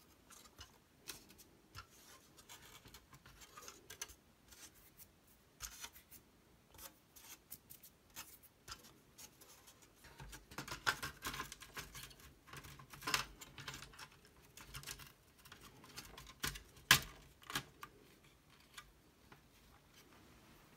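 An Apple IIc's circuit board being handled and seated in its plastic bottom case: scattered light clicks, taps and scrapes of board and plastic, busier in the second half, with one sharper click a few seconds before the end.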